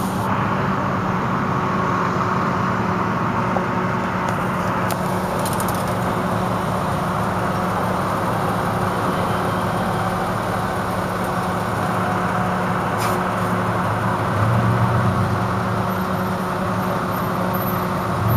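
Steady motor-vehicle noise: an engine's even low hum with road noise, holding level without revving.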